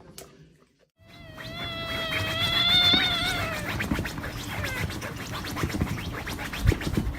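A pet animal's single long, high cry, lasting about two seconds and wavering slightly before it falls away, followed by a few soft knocks.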